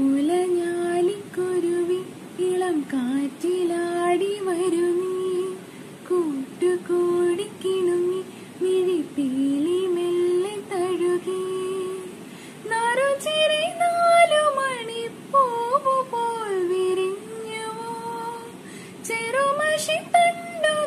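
A woman singing a melody alone, with no accompaniment. About twelve seconds in, her line moves up to a higher pitch.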